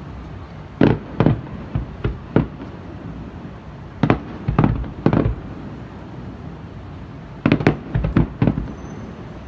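Aerial fireworks shells bursting: three groups of sharp bangs, one in the first couple of seconds, one around the middle and one near the end, with a steady hiss of background noise between them.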